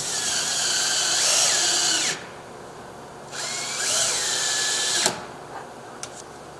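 Power drill driving screws through a storm door's frame into the door opening, in two runs of about two seconds each. In each run the motor whine rises and falls in pitch, and the second run cuts off abruptly as the screw seats. A couple of faint clicks follow.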